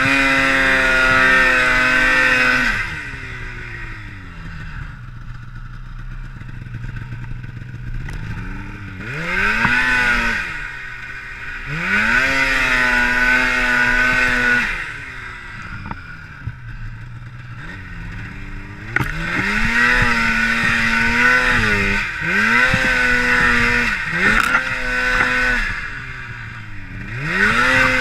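Polaris Pro RMK Assault snowmobile's two-stroke engine revving hard in about half a dozen bursts, each rising quickly and holding high before dropping back to idle. The sled is stuck in deep powder and the rider is throttling to free it.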